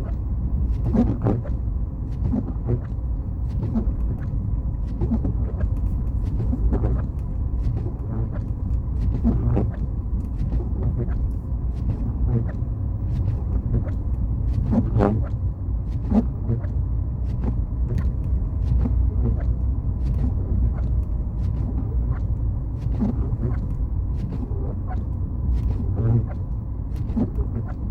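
A car driving, with a steady low rumble of road and engine noise and frequent short knocks and clicks over it.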